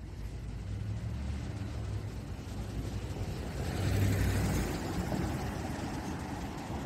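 A car passing by on the street, its engine and tyre noise building to a peak about four seconds in and then easing off, over a low rumble of traffic.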